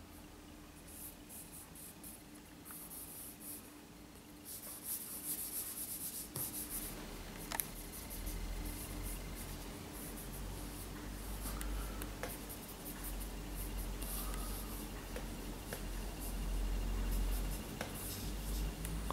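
Charcoal scratching and rubbing on drawing paper in quick, irregular strokes, with fingers smudging the lines now and then. A low rumble comes in underneath about a third of the way in and grows louder near the end.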